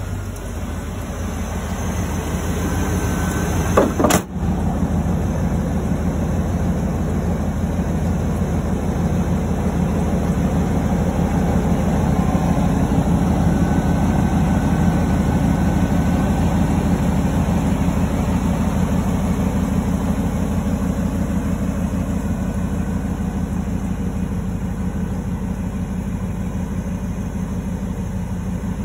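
1998 Chevrolet Silverado pickup's engine idling steadily. There is a single sharp knock about four seconds in.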